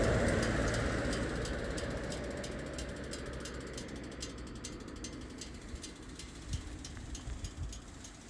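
2002 Harley-Davidson Sportster 883 Hugger's air-cooled OHV V-twin idling, its mechanical clatter coming through as a rapid, even ticking. A louder rushing noise fades away over the first few seconds.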